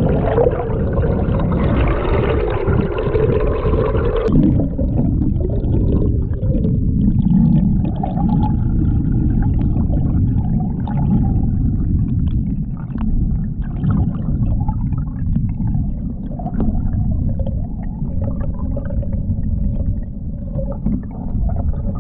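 Muffled underwater rumble of water moving past a submerged GoPro camera, with faint gurgles. For about the first four seconds a brighter rushing sound sits over it, which cuts off sharply with a click. After that only the low rumble remains.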